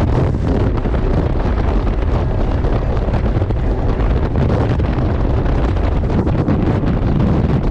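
Wind buffeting the microphone over the steady, low run of a Kawasaki STX-160 jet ski's four-stroke engine under way at speed.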